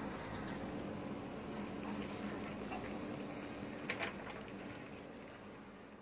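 JCB backhoe loader's diesel engine running steadily under a loud, steady high-pitched insect drone from the surrounding forest. A couple of sharp knocks come just before four seconds in as the bucket works the loose rock, and then the sound fades out.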